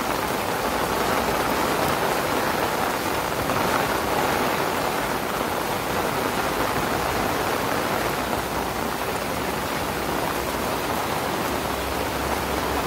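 Heavy rain pouring down, a steady, even hiss of dense rainfall.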